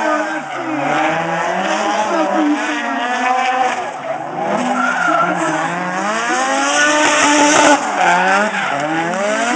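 Drift car engine revving up and down repeatedly as the car slides sideways, with its tires squealing and skidding, loudest near the end.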